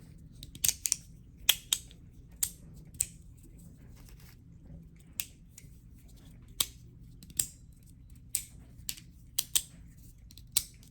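Resin circular magnetic slider fidget being slid, giving sharp, irregular clicks, some in quick pairs, as the magnets inside jump from one position to the next.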